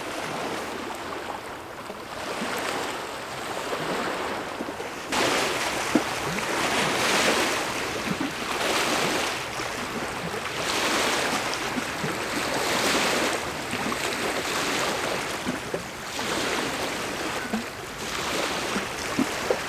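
Small waves of Lake Baikal washing in and drawing back over a pebble shore, swelling and fading every two seconds or so, and louder from about five seconds in.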